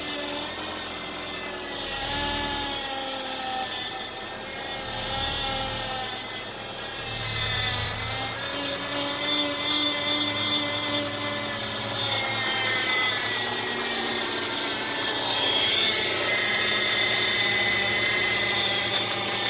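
Power steering pump of a 2009 Subaru Outback whining and groaning with the engine cold, its pitch wavering up and down, with a quick run of ticks partway through. The noise goes with foaming fluid in the reservoir, which is worst when the engine is cold.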